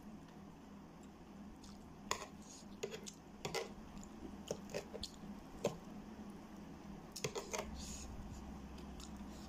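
Close-miked eating sounds: wet chewing of saucy instant noodles, and a metal spoon clicking and scraping on a tray as it cuts through fried egg, in scattered short, sharp clicks.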